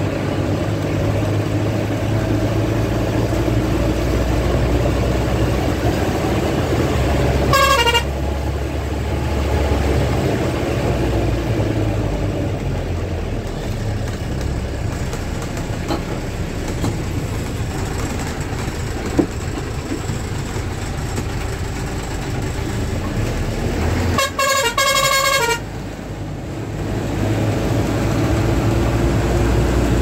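Bus engine and road noise heard from inside the cabin, running steadily on a winding hill road. A horn sounds briefly about a quarter of the way in, and again near four-fifths of the way in as a longer, broken series of blasts.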